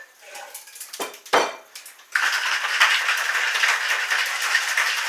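Ice dropped into a metal cocktail shaker tin with a few sharp knocks. Then, about two seconds in, a steady hard rattle of ice as the cocktail is shaken in a Boston-style shaker.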